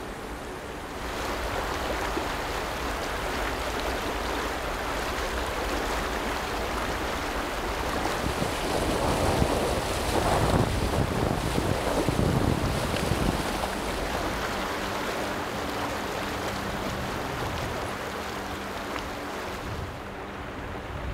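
Rushing river water with wind buffeting the microphone. The water grows loudest about halfway through, where legs wade and splash through the current during a river ford.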